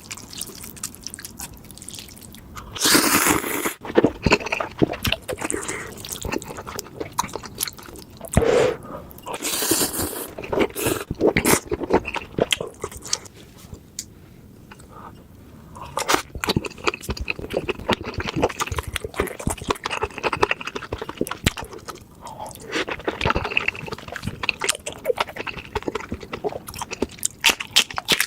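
Close-miked eating of noodles: slurping and wet chewing with a run of small clicks, and louder slurps about 3 and 10 seconds in.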